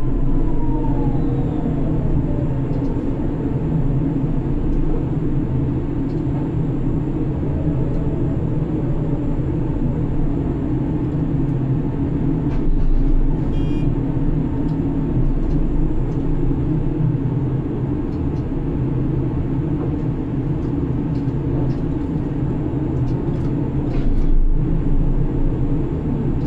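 Heavy grab crane machinery running steadily, a low rumble and hum as heard inside the operator's cabin, with a whine that falls in pitch over the first couple of seconds.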